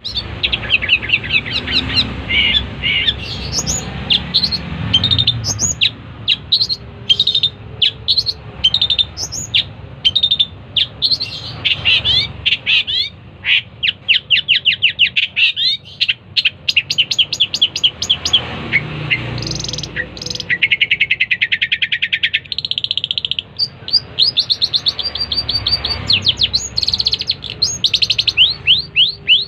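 Long-tailed shrike (cendet) singing non-stop: fast runs of sharp, high chirps and trills, with a longer buzzy rattle about two-thirds of the way through.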